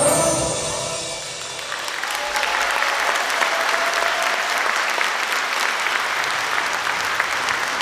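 Stage music fading out over the first second or two, then an audience applauding steadily.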